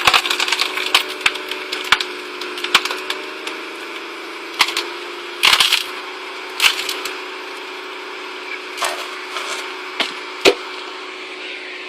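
A log splitting on a Stickler screw-cone wood splitter: repeated sharp cracks and splintering of wood as the turning cone bores in, the loudest bursts around the middle. A steady engine hum from the drive runs underneath.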